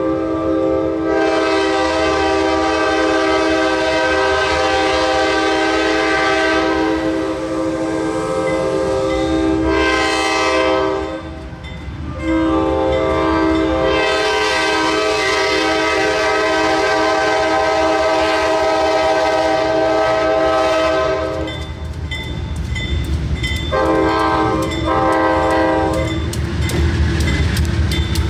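Freight locomotive air horn sounding a chord in the grade-crossing pattern: long, long, short, long, as the train approaches the crossing. Near the end, engine rumble and wheel clicks build as the lead locomotive arrives.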